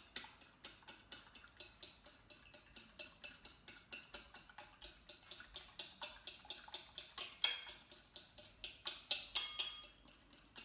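Egg being beaten in a white ceramic bowl: the metal utensil clinks against the bowl about three to four times a second, in a steady rhythm, with one louder clink about two-thirds of the way through.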